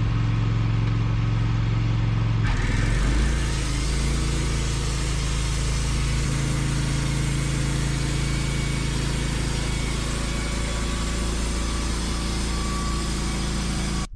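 Wood-Mizer LT15 band sawmill running, its engine going steadily. About two and a half seconds in, a loud steady rushing hiss of the band blade cutting through the log joins the engine and carries on, while the engine note shifts under the load.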